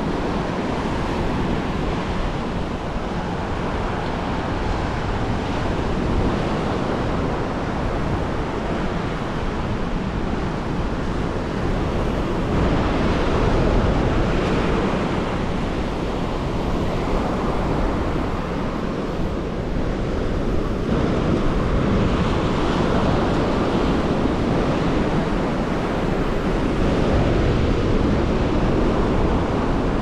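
Ocean surf breaking steadily on a sandy beach, in slow swells, mixed with wind rumbling on the microphone.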